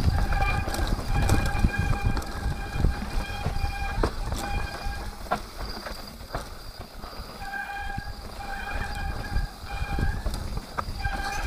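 Mountain bike descending a rough dirt trail: the rear freewheel hub buzzes in a steady high tone while coasting, cutting out for a few seconds in the middle, over the rumble and rattle of the bike on the ground, with sharp knocks from hits.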